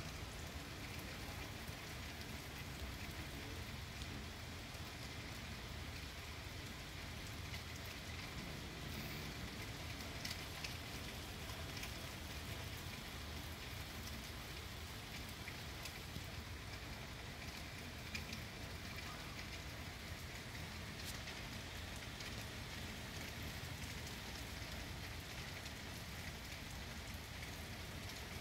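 Heavy rain falling steadily, with a few sharper drop taps now and then.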